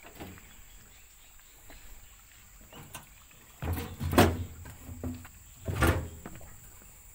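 A few heavy knocks and thumps of footsteps and handling on a Cat 320D excavator's steel track and deck: two about four seconds in, another near six seconds.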